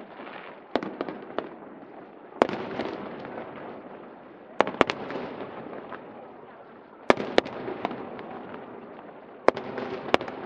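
Aerial firework shells bursting, sharp bangs in clusters of one to three about every two to three seconds, each with a short echoing tail, over background crowd chatter.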